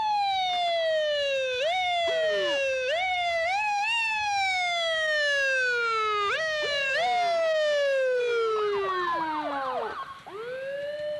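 Fire truck siren being blipped over and over: each time it jumps up sharply in pitch and then slowly winds down, at uneven intervals.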